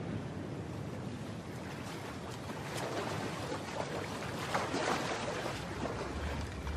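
Ocean surf washing steadily, with irregular splashing from about two and a half seconds in as a person wades through a shallow rock pool.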